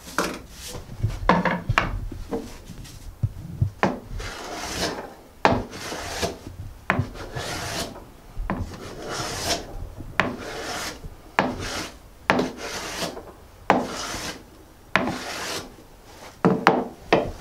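Low-angle hand plane taking repeated shavings off quilted maple, each stroke a short scrape of the blade through the wood, about one a second.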